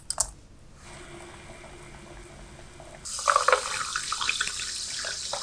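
A fizzy drink poured over ice into a glass, starting suddenly about three seconds in with splashing and fizzing that carries on. Before it, a few short clicks at the very start, then a faint steady hiss.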